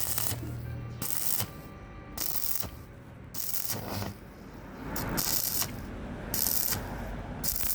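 MMA stick-welding arc crackling in short bursts, about one a second, each lasting a fraction of a second, as the arc is struck and broken again, over a low steady hum.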